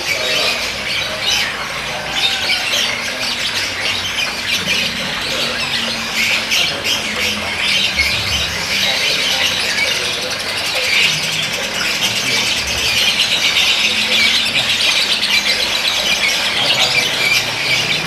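Male koslet-mutation lovebird chattering: a fast, unbroken stream of high squeaky chirps and trills that gets denser and a little louder in the second half.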